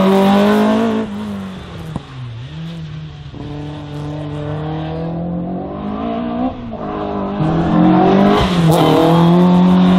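Volkswagen Golf Mk1 slalom car's engine being driven hard, revving up and easing off as it threads the cones. It is loud at the start, drops back about a second in, builds up again through the middle, and revs loudest over the last two seconds.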